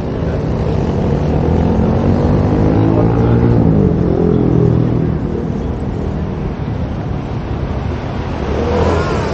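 A motor vehicle's engine accelerating past, its pitch rising and then falling away after about four seconds, over steady street traffic noise.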